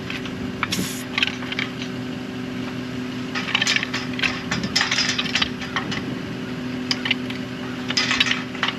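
Metal clanks, clinks and rattles of steel well pipe and tools being handled while the drop pipe is pulled from the well, in clusters about three and a half seconds in, around five seconds, and near the end. A steady mechanical hum runs underneath.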